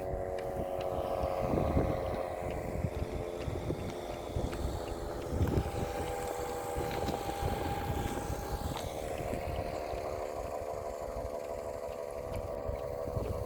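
Air-raid siren sounding the attack warning: a steady, droning tone with several pitches stacked together that shift slowly. A higher tone drops out about nine seconds in.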